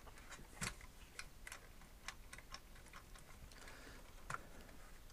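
Faint, irregular small clicks and light knocks of a plastic 1:16 RC truck and its rubber snow tracks being handled and tilted by hand.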